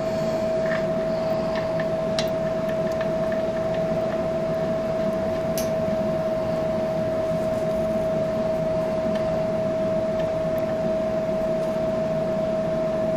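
Steady mechanical hum: one constant tone held over a hiss, from a running machine. A few faint clicks come in the first few seconds.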